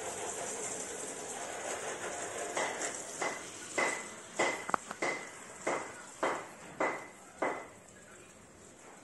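Garden hose spraying water in a steady hiss, then a run of about ten short sharp sounds with a high ring, roughly one every half second, ending near the end.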